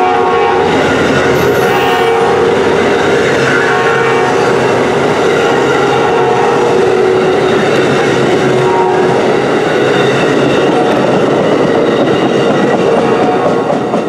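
Amtrak passenger train's stainless-steel cars rolling past at close range, wheels running on the rails in a loud, steady rush with several steady tones over it, easing a little near the end as the last car goes by.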